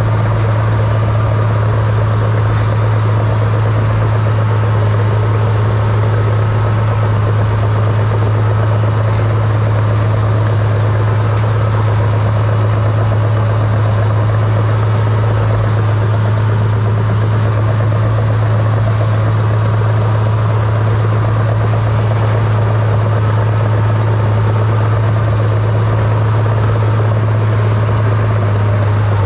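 Small crawler bulldozer's diesel engine running, heard from the operator's seat as the machine pushes snow: a loud, even drone with a strong low hum that holds steady throughout.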